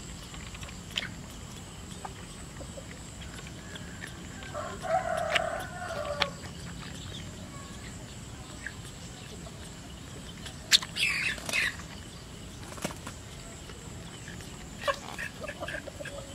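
Chickens clucking in short bursts, about five seconds and again about eleven seconds in, over a steady background.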